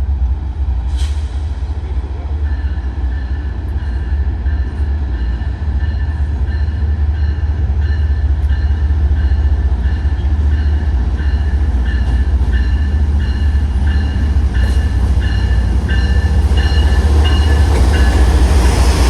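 Train running with a heavy, steady low rumble, and a high repeated tone pulsing about twice a second for most of the time.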